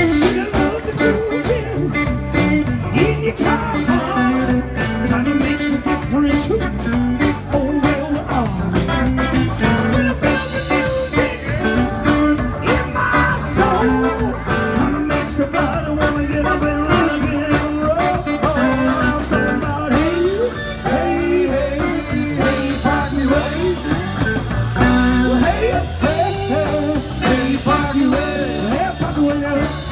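Live band playing amplified rock music: electric guitars over a drum kit keeping a steady beat.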